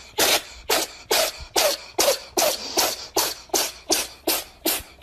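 Wheezing, breathy laughter in short, even bursts, about two and a half a second, each a quick rush of air.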